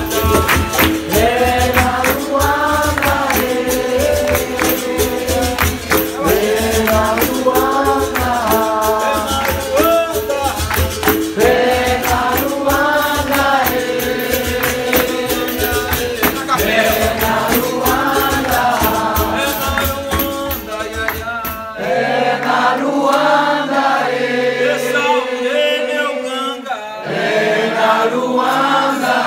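Capoeira roda music: a group sings a capoeira song over berimbaus, hand clapping and an atabaque drum. About 22 seconds in, the drum and clapping drop out and the singing carries on.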